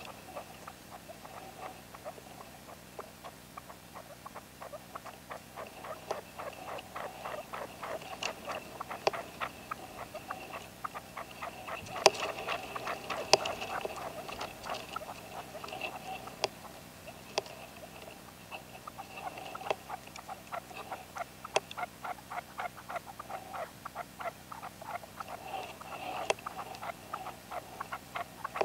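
A caged decoy red-legged partridge calling in a rapid, continuous series of short clucking notes, several a second. A few sharper, louder notes come about halfway through.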